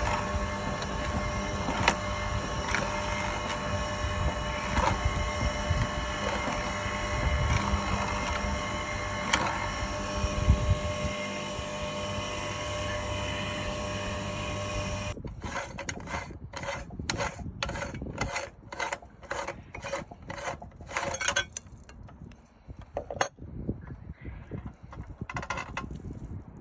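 Motor-driven meat grinder running steadily with a mechanical hum while grinding bars of soap. About 15 seconds in the hum stops and a rhythmic pulsing about twice a second follows for several seconds, then scattered knocks and clicks.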